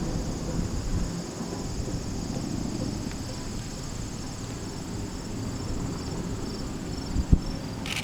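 Insects chirping in a fast, even rhythm of high pulses, over a steady low rumble; a single bump about seven seconds in.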